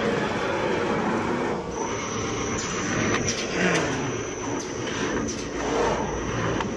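Paper tube cutting machine running: a steady mechanical clatter, with a thin high whine coming in about two seconds in and sharp knocks at uneven intervals of about half a second to a second.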